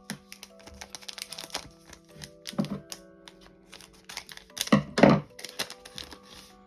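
Trading cards and pack wrapper handled: a dense run of quick clicks and crackles as cards are slid and flicked, with louder crackles and thumps about three and five seconds in, over soft background music with held notes.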